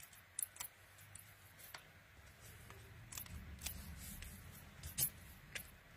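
Faint scattered clicks and light rustles of paper and card being handled on a craft table, about seven small ticks in all, the loudest about five seconds in, over a low rumble of handling.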